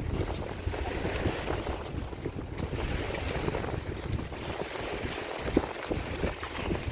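Wind buffeting the microphone: an uneven low rumble with a hiss above it and a few small knocks.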